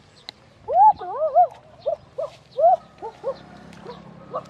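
White domestic ducks, held and carried by hand, giving a quick run of short calls starting about a second in, loudest in the first few, then thinning out.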